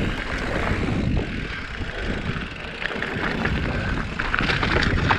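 Wind buffeting the camera microphone and tyres rolling over a rough dirt trail as a mountain bike is ridden, with faint rattling from the bike.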